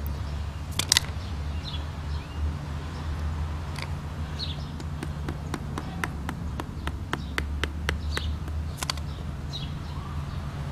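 Knife blade tapping and scraping on a wooden bow-drill fireboard, knocking the smouldering dust ember out of the notch: two sharp knocks about a second in, then a quick run of light clicks, about five a second, in the second half. Birds chirp faintly over a low steady hum.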